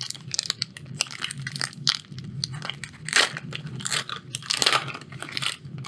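Foil wrapper of a Magic: The Gathering draft booster pack being torn open and crinkled by hand: irregular crackling and crunching.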